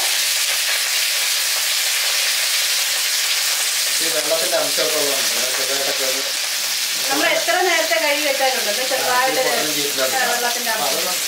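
Fresh punarnava (thazhuthama) leaves sizzling steadily as they are dropped by handfuls into hot oil in a kadai and stirred with a ladle.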